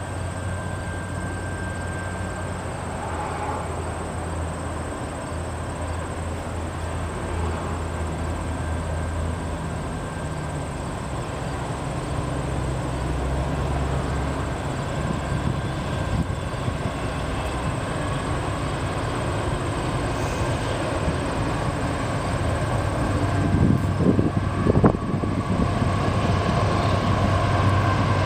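Diesel locomotives of an approaching freight train: a low, steady rumble that slowly grows louder, with a few brief knocks near the end.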